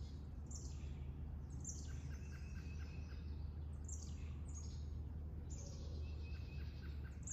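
Songbirds singing in woodland: short high phrases that drop in pitch, some ending in a quick trill, repeated every second or so. A steady low hum runs underneath.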